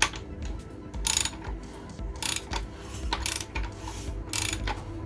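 Socket ratchet clicking in short strokes about once a second as a rebuilt Reliant eight-valve four-cylinder engine is wound over by hand on the crankshaft nut, working against good compression.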